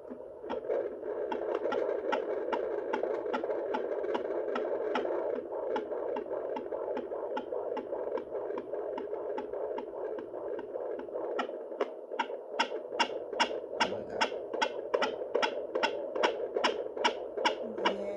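Handheld fetal Doppler monitor picking up a 20-week fetus's heartbeat: a fast, regular pulsing, about two and a half beats a second, over a steady whooshing hiss. The beats grow louder and sharper about two-thirds of the way through.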